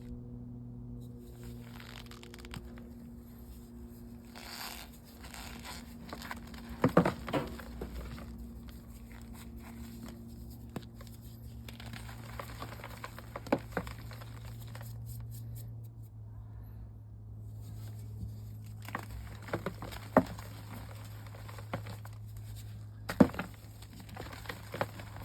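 Gym chalk balls being crumbled by hand: soft, powdery crunching and crackling with a few sharper snaps, over a steady low hum.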